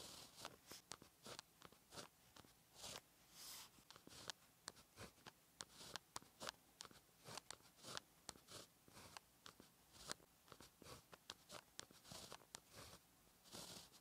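Pen tip scratching on paper, writing Chinese characters stroke by stroke: many short, quick strokes with a few longer drawn strokes. Faint and close.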